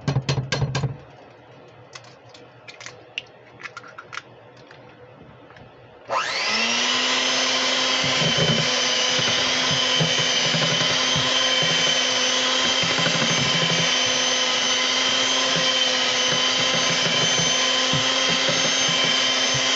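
A few sharp knocks and clicks. About six seconds in, an electric hand mixer is switched on: its motor whines up quickly and then runs with a steady hum and a high whine as the beaters work through creamed butter and sugar.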